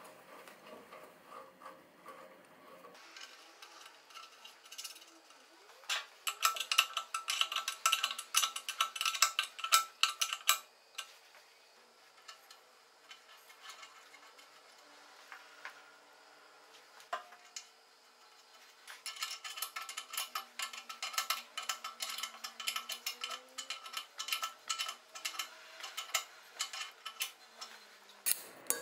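Two spells of rapid metallic clicking and rattling, one about five seconds long and a longer one of about nine seconds, with quieter handling noise between.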